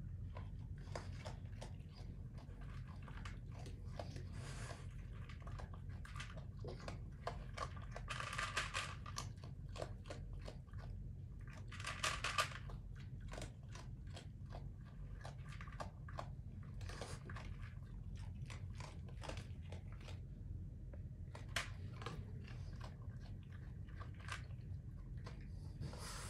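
Raccoons chewing and crunching food from a dish, with many small irregular crunches and clicks. Two louder, longer bursts of noise come about eight and twelve seconds in.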